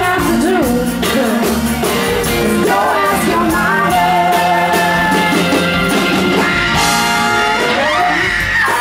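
Live rock band playing, with a sung lead line over the band.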